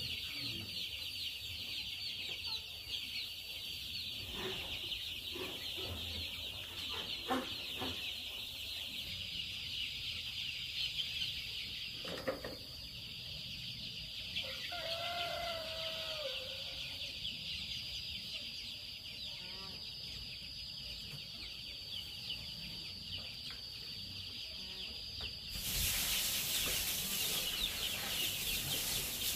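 A large flock of young chicks peeping, a dense high cheeping chorus that grows louder near the end. About halfway through, a rooster crows once in the background, and a few light knocks sound in the first half.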